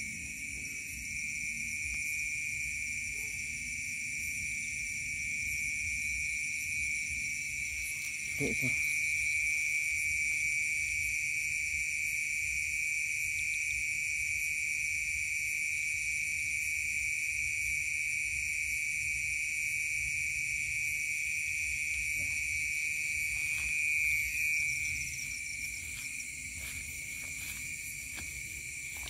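Night insect chorus: several steady, high-pitched trills at different pitches, one much stronger than the rest. A low rumble runs underneath, with a brief falling sound about eight seconds in and light clicks near the end.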